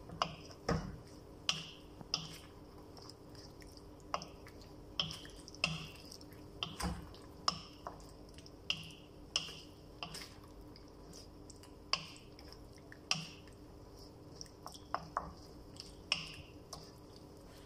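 Thick teriyaki sauce simmering in a pan, its bubbles bursting in irregular soft pops about once or twice a second, over a faint steady hum.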